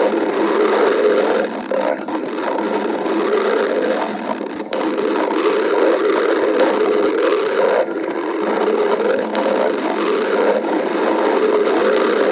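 Stomach growling: one long, continuous, rough rumble that fades briefly a few times and then builds again.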